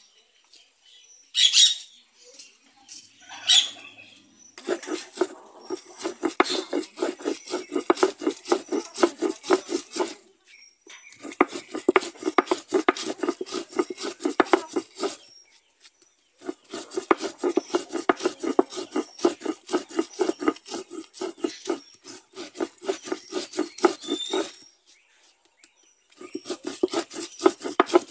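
Stone hand roller (mano) scraping back and forth on a stone metate, grinding panela with cinnamon into a paste: a rapid gritty rasp of stone on stone. It comes in four long bouts with short pauses between them, starting a few seconds in.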